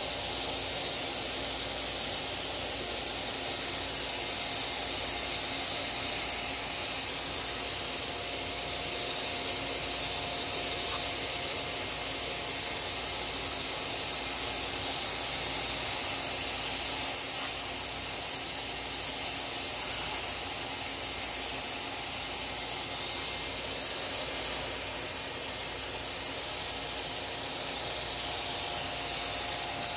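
Vacuum cleaner running steadily, its clear braided hose sucking dust out of the inside of a sewing machine: a constant hiss with a high whine. The sound wavers briefly a few times in the second half as the hose is moved.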